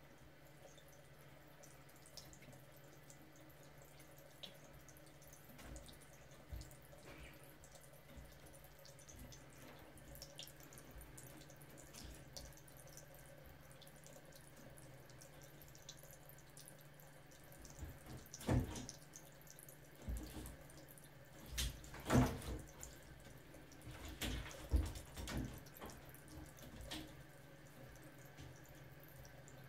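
A cat's paws and claws knocking and scrabbling on the metal top rail of a glass shower cabin, a run of sharp taps and knocks in the last third, over a faint steady hum and hiss.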